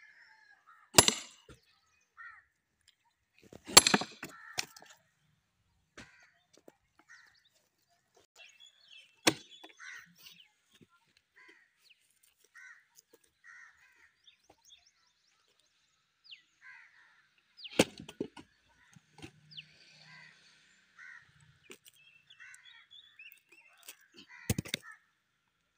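Sledgehammer blows on a steel wedge driven into a thick log to split it: about five hard, sharp strikes several seconds apart, the loudest two near the start, with the wood cracking as it gives. Crows caw faintly in the gaps.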